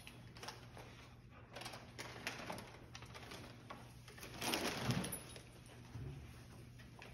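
Dog rustling and pulling at crinkly Christmas wrapping paper and tissue paper, with scattered crackles and a louder rustle about four and a half seconds in. A short low-pitched sound comes with that loudest rustle.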